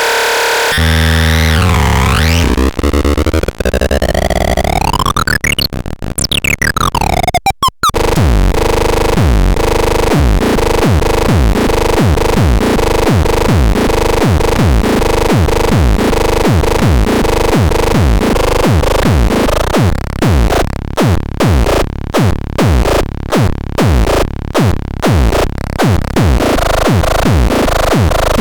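Electronic synthesizer sound demo: sweeping, filtered tones and pitch glides, then a fast repeating pattern of short falling pitch drops, about two a second, over a steady held tone, briefly chopped on and off near the end.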